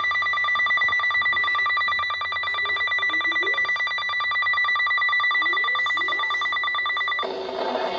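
NOAA Weather Radio 1050 Hz warning alarm tone, a steady high-pitched tone heard through a weather radio receiver that signals an alert is about to be read. It cuts off abruptly about seven seconds in, and the broadcast voice message of the severe thunderstorm warning begins.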